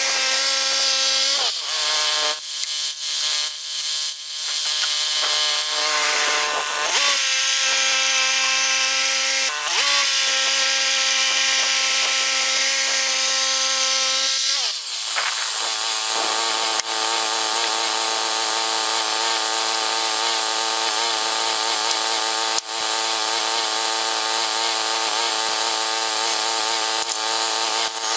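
Woodland Mills HM122 bandsaw mill's engine running as the band blade cuts through a large pine log. Its pitch dips several times in the first half, and from about halfway on it runs lower and wavering under the load of the cut.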